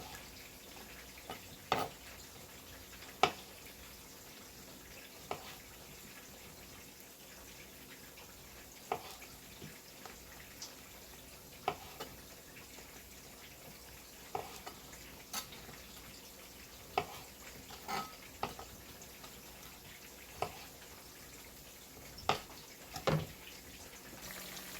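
Faint, steady sizzle of food frying in a pan. Scattered sharp clicks and knocks come at irregular intervals, about fifteen of them, which fit a utensil against the pan.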